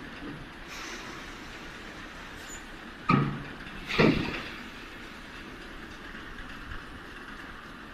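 Open-mouth grain bagging scale running with a steady mechanical rattle and hiss, and two loud clunks about three and four seconds in as a woven bag is hung on the discharge spout and filled with grain.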